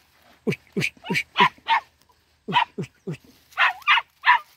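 Young Vietnamese native hunting dog barking while it works a scent in undergrowth: about a dozen short, sharp barks in three quick runs.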